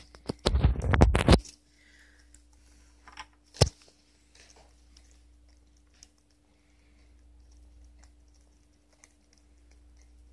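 Faint small clicks and ticks of an eastern gray squirrel eating cubed watermelon. A loud scratching rustle lasts about a second near the start, and a single sharp click comes a few seconds in. A low steady hum runs underneath.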